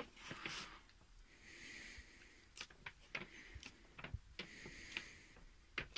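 Pages of a paper instruction manual being turned and handled: soft rustles and several light taps and clicks, with two faint breaths.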